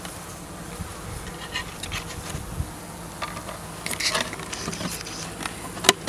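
Honeybee colony buzzing steadily in an open hive, with scattered light clicks and one sharp click near the end.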